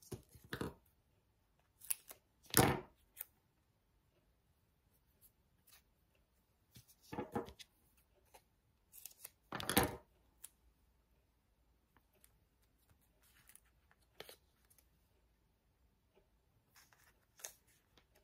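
Small paper card pieces and foam tape being handled at a craft table: a scattering of short, crisp rustles and snips with quiet gaps between. The sharpest come about two and a half and ten seconds in.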